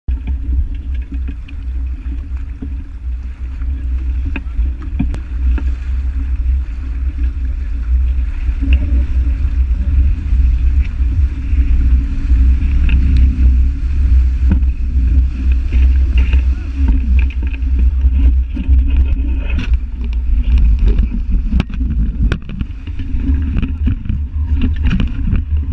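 Wind buffeting the microphone and water rushing and spraying off the hulls of a Hobie 16 catamaran sailing fast, with sharp knocks and splashes that come more often in the second half.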